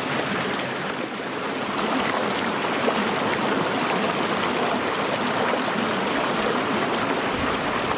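Shallow river water running over rocks in a small riffle: a steady rush of water.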